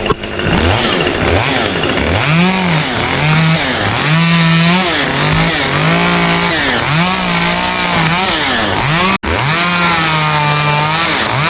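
Chainsaw revving up and down over and over, its pitch rising and dropping about once a second, with a momentary break about nine seconds in.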